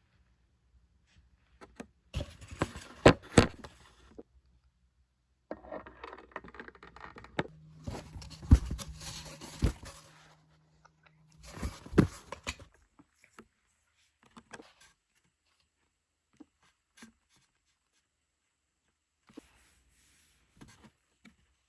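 Handling noises: rustling, scraping and sharp clicks in three bursts, then a few scattered faint clicks, with a low hum under the middle burst.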